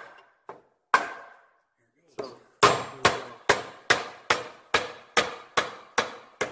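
Hammer blows on a Triumph 650's aluminium crankcase to split the two halves apart, each blow giving a sharp knock with a short metallic ring. Two single blows come first, then about two seconds in a steady run of even blows, roughly two and a half a second.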